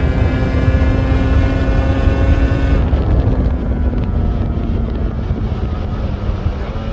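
Yamaha RZ350's two-stroke parallel-twin engine running at steady revs; about three seconds in its sharper upper edge drops away and the revs ease slightly down.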